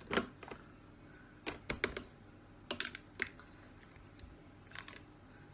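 Irregular light clicks and knocks of a silicone spatula and the whisk attachment against the stainless steel mixing bowl of a Monsieur Cuisine Plus food processor, as the whisk is worked loose and lifted out of beaten egg whites.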